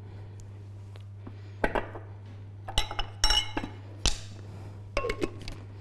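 Glassware and crockery clinking and knocking as a glass blender jar and a ceramic cup are handled: a handful of sharp taps with short ringing, starting about a second and a half in, over a steady low hum.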